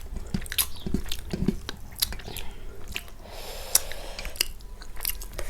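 Close-miked chewing and biting of food, wet, squishy mouth sounds broken by many small clicks.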